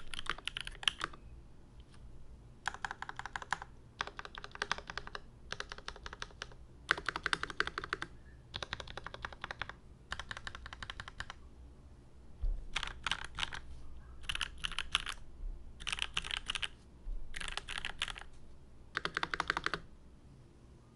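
Custom Volcano660 Reborn mechanical keyboard being typed on fast: 8008 Inks housings with Raed stems, lubed, on a brass plate with no foam, under GMK Future Funk keycaps. Keys clack in quick runs of about a second each, with short pauses between runs. The typing stops near the end.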